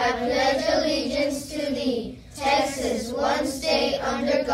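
A group of children reciting the Texas pledge of allegiance together in unison ("Honor the Texas flag; I pledge allegiance to thee, Texas…"), in phrases with a short pause about two seconds in.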